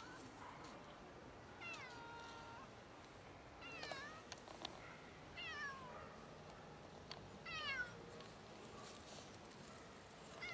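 Ginger-and-white cat meowing for food: four meows a second or two apart, each falling in pitch, the first one long and drawn out, with another starting right at the end.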